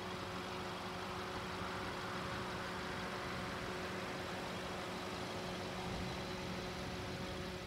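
A pickup truck driving past close by, its tyre and engine noise swelling and fading through the middle, over a steady low engine hum from the airfield.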